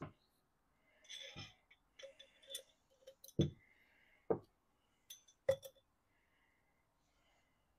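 Small stainless steel washers and steel tweezers clinking against a glass jar of bluing solution: a scatter of sharp clinks with a few duller, louder knocks about three and a half, four and a quarter and five and a half seconds in.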